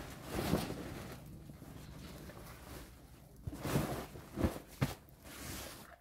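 Heavy embroidered upholstery fabric rustling and swishing as it is handled and pulled open, with a few louder swishes a little past halfway.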